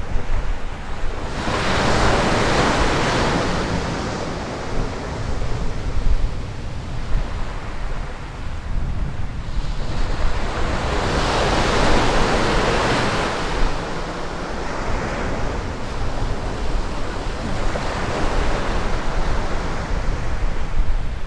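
Small waves breaking and washing up a sandy beach, surging twice, about a second in and again about ten seconds in, over a steady low rumble of wind on the microphone.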